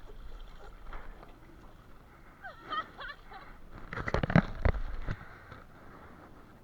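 Water splashing and sloshing around a kayak at sea, with a loud cluster of splashes about four to five seconds in.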